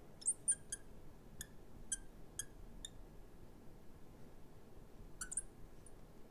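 Marker writing on a glass lightboard: short high squeaks of the tip near the start, about four light ticks roughly twice a second, then another squeak about five seconds in.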